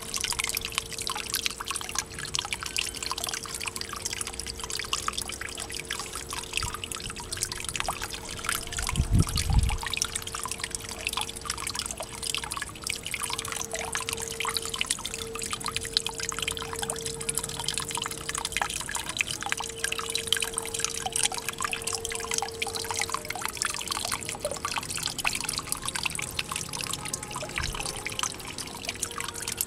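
Water trickling and splashing into a small garden pond from a pipe, a constant fine patter of drips. A steady hum runs underneath, and a single low thump comes about nine seconds in.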